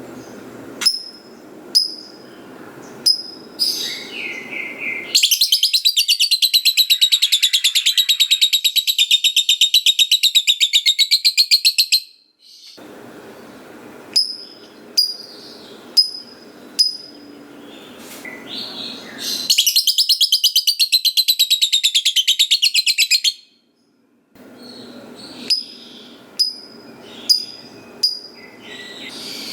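Lovebird calling: sharp single high chirps about once a second, broken twice by a long, rapid chattering trill, the 'ngekek panjang' prized in lovebirds. The first trill lasts about seven seconds and the second about four, and a third begins right at the end.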